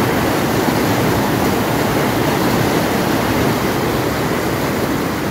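River water rushing and foaming over boulders in small rapids, a loud, steady rush.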